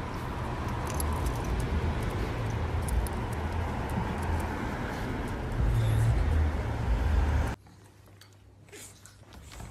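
Steady outdoor city street noise, a low rumble of traffic. It cuts off abruptly near the end, leaving a quiet room with a few faint taps.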